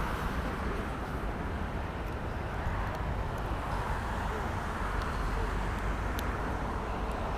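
Steady outdoor background noise with a low rumble and a hiss, and a few faint clicks.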